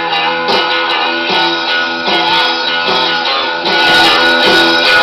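A song with guitar playing from pre-recorded tape on a Wollensak T-1980 reel-to-reel deck, heard through the deck's own amplifier and small built-in speakers. About three-quarters of the way in the treble control is turned up and the music suddenly gets brighter and louder.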